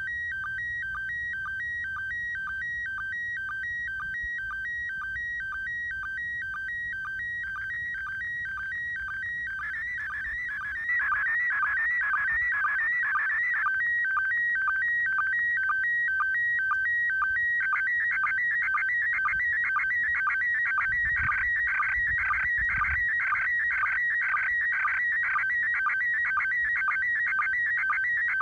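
Slow-scan television (SSTV) signal from the International Space Station heard through a radio receiver: a chirping pattern of high tones that beats about three times a second, one beat per scan line. About ten seconds in it gets louder, and the tones wander more as the picture content changes.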